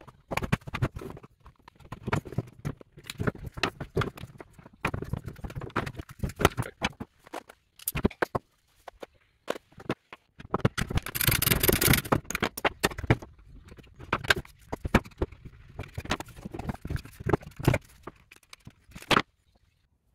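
Hand disassembly of a plastic battery contactor block: scattered clicks and knocks of plastic housing parts and small components being handled and set down, with short scrapes. About halfway through there is a rasping scrape lasting about a second.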